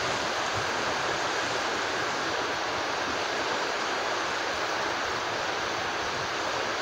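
Steady rush of flowing river water, an even, unbroken hiss-like noise.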